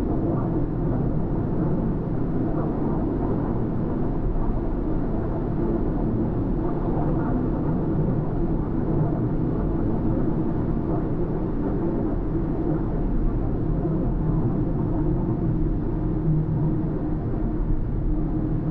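Car driving along a road at steady speed: continuous tyre and engine noise with no sudden events.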